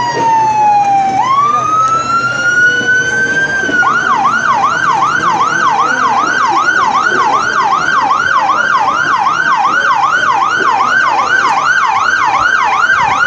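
Emergency vehicle's electronic siren, loud: a slow wail falling and then rising, which about four seconds in switches to a fast yelp, rising and falling about two and a half times a second.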